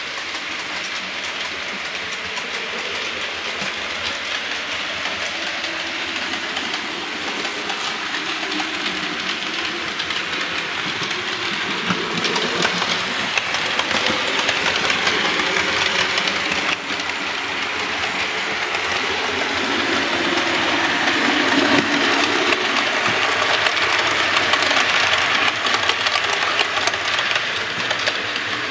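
Model trains running on the layout's track: a steady rush of wheels rolling on the rails with motor hum, growing louder in the second half.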